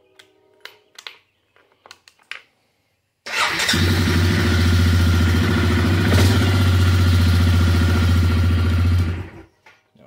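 2021 Suzuki KingQuad 400 ATV's single-cylinder engine starting on the key about three seconds in, idling steadily, then shutting off about nine seconds in; a few light clicks of the key and switch come before it. The start shows that the newly fitted replacement key switch works.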